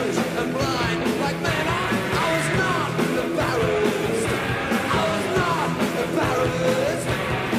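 Punk rock band playing loudly, with a shouted vocal that slides up and down in pitch over guitar and drums.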